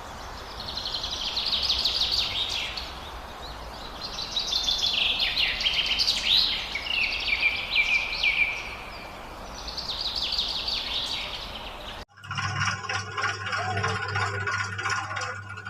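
Birds chirping and singing in quick, trilling phrases, in three spells over a steady background hiss. About twelve seconds in, the sound cuts off abruptly and a different sound with a steady low hum and held tones takes over.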